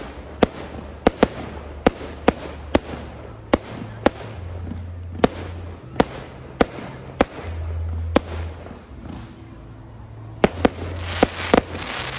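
Aerial fireworks shells bursting overhead in an irregular series of sharp bangs, one or two a second. Near the end the bangs crowd together with a crackling hiss.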